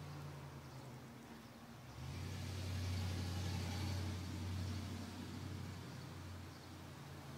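Passing road traffic: a steady low engine hum, with a vehicle going by that swells about two seconds in and fades toward the end.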